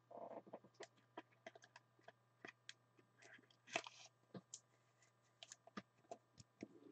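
Near silence with faint scattered clicks and light crinkles of trading cards and plastic card holders being handled, over a faint low hum.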